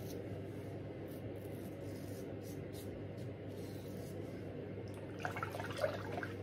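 Safety razor (Home Like Shaving Start with a Voskhod blade) drawn over lathered stubble in a touch-up pass, a brief crackle of the blade cutting about five seconds in, over a steady low hum.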